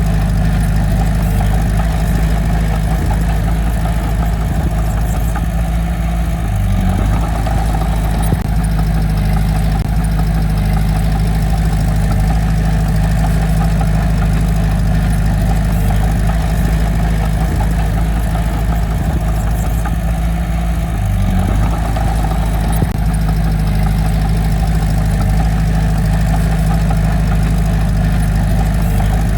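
Diesel engine of heavy earthmoving equipment running steadily, its pitch shifting briefly twice, about a third of the way in and again about two thirds of the way in.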